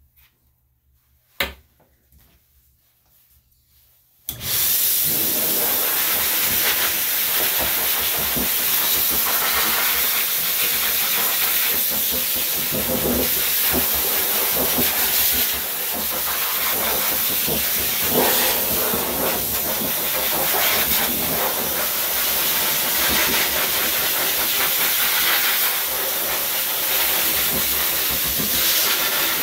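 A single sharp click about a second in, then a dog-grooming hose dryer starts up about four seconds in and blows a loud, steady rush of air through its nozzle, drying a dog's damp coat.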